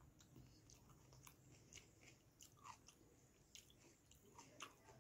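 Faint eating sounds: a person chewing rice and curry eaten by hand, with scattered small wet clicks.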